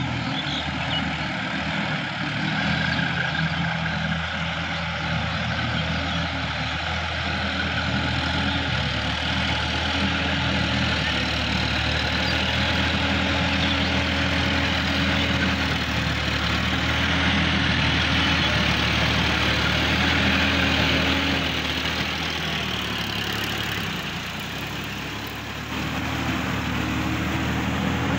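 Sonalika DI-50 RX tractor's diesel engine running steadily under load while its rear implement churns water and mud in a flooded paddy field. It grows louder toward the middle and dips briefly near the end.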